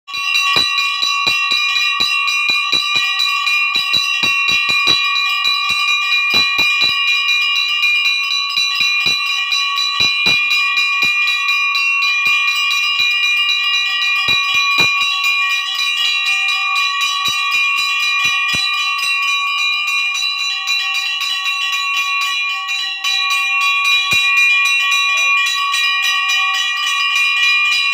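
A puja bell rung rapidly and without pause, its ringing holding the same pitches throughout, with scattered knocks underneath.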